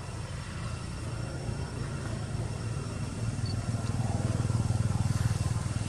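A low, steady motor rumble that grows louder about four seconds in.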